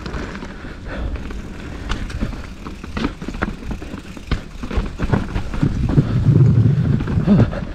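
Mountain bike riding over a rough dirt trail: tyre rumble with the bike clattering and knocking over bumps, growing louder for the last two seconds or so.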